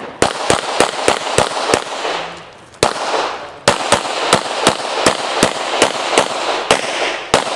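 Rapid competition pistol fire from a Springfield Armory XDm 5.25 in .40 S&W: a string of about six shots roughly a third of a second apart, a pause, a single shot about three seconds in, then a longer string of about eleven shots at the same pace, each shot ringing briefly.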